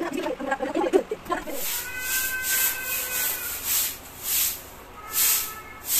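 Rhythmic swishes of a hand-held grass broom sweeping across a plastic floor mat, about one stroke a second, starting about a second and a half in. A voice is heard briefly before the sweeping starts.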